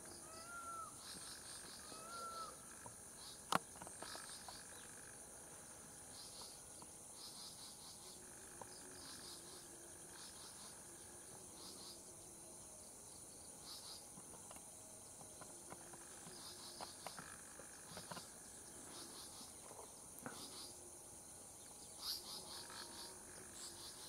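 Forest insect chorus: a steady high drone with repeated bursts of pulsed, cricket-like chirping. A couple of sharp clicks cut through, the loudest about three and a half seconds in.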